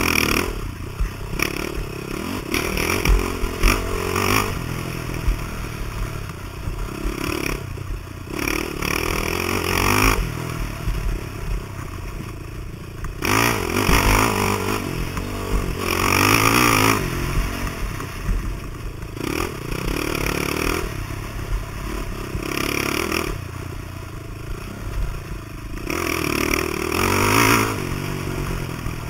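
Dirt bike engine revving up and down over and over, the pitch rising and falling every few seconds as the throttle is worked.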